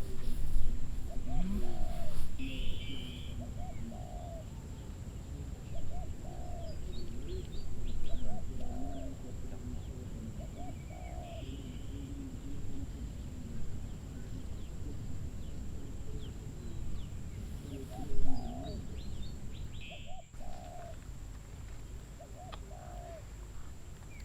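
A dove cooing in short low notes repeated about every second and a half, with small birds chirping high above it.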